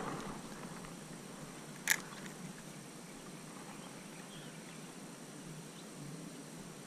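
A single sharp click about two seconds in, a spinning reel's bail snapping shut after the cast, over a faint steady background.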